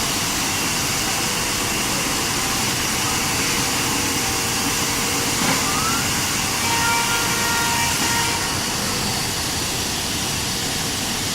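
Belt sanding unit on a 5-axis CNC machine running with a steady, noisy rush and faint high whining tones that come and go.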